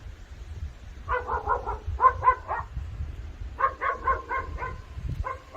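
An animal giving quick runs of short, pitched calls at about five or six a second: one run about a second in, another past the middle, and more starting near the end, over a steady low rumble.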